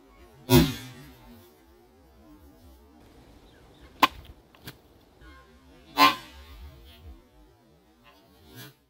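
A katana blade cutting through a pumpkin: two loud, sudden chops, about half a second in and about six seconds in, each with a brief ringing tail. A couple of short, sharp clicks fall between them.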